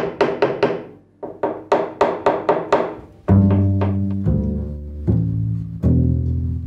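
Double bass played pizzicato: a quick run of short plucked notes, then from about halfway a few long low notes, each ringing and slowly fading until the next one starts.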